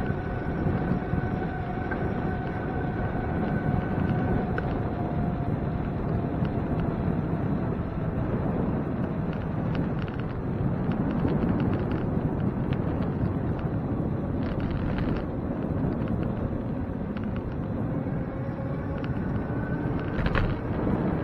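Wind rushing over the microphone and road noise from a moving bicycle, a steady low rush. Faint whining tones come in the first few seconds and again near the end, and scattered light clicks come in the middle and near the end.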